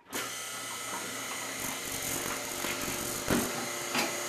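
Milking machine vacuum pump switching on and running steadily, a motor hum with several fixed tones. A few sharp slurps about three and four seconds in as the milker unit sucks rinse water and air through its hoses.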